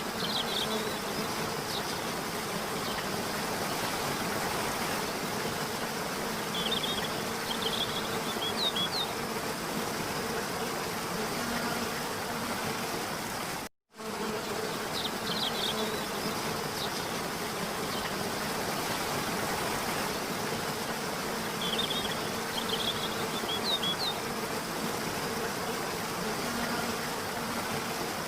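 Steady rushing noise of a waterfall with a low, even buzz under it and a few short, high bird chirps. The sound cuts out for an instant about 14 seconds in and starts again, because the recording loops.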